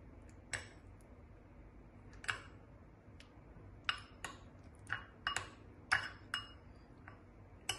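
Steel spoon clinking and scraping against a bowl while stirring a thick curd-based spice marinade: about ten irregular light clinks, each ringing briefly, the loudest near the end.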